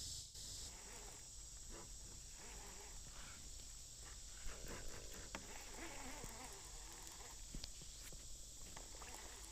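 Faint outdoor ambience by the water: a steady high hiss with a few light clicks and some soft rustling about halfway through.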